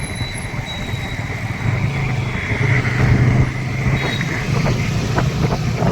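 Engine of a moving two-wheeler running steadily, its low hum swelling about two seconds in, over wind and road noise.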